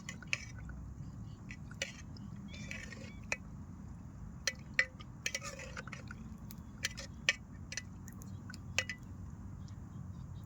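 A metal spoon clinking irregularly against a metal cooking pot while pasta and noodles are stirred in water, with a steady low rumble underneath.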